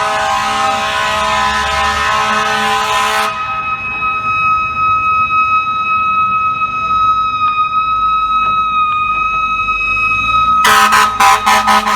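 Fire truck air horn blasting for about three seconds, then the truck's siren holding one steady high pitch. About eleven seconds in the air horn comes back in a rapid series of blasts. A low engine hum runs underneath.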